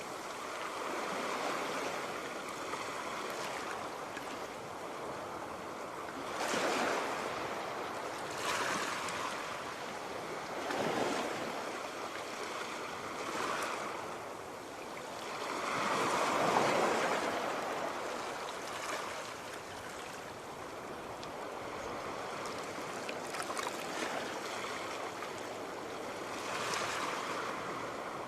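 Sea waves washing onto the shore: a steady wash of surf that swells as waves break every few seconds, the biggest a little past halfway.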